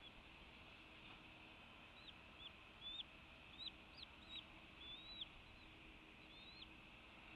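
A bird calling faintly: about eight short, high chirping notes, each a quick upward-then-downward slur, irregularly spaced over a few seconds, over a steady faint hiss.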